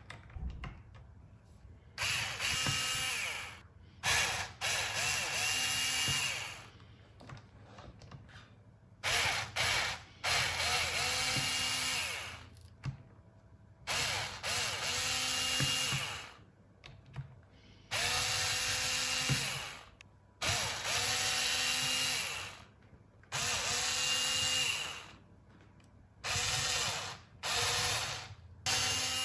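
Miniature V-twin model engine run in repeated bursts of a few seconds each, a whirring mechanical whine that climbs in pitch as it spins up, holds, then stops, with short pauses between bursts.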